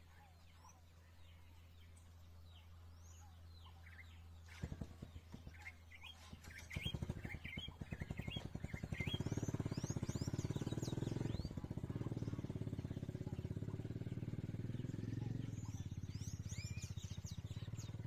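Birds chirping with many short, high calls. From about five seconds in, a small engine comes in with a rapid, even pulse, grows louder and then runs steadily, becoming the loudest sound.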